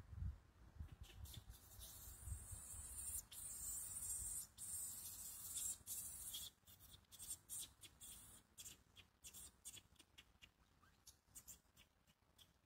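Faint scratchy rustling and a run of small crackling clicks, with a steady high hiss through the first half.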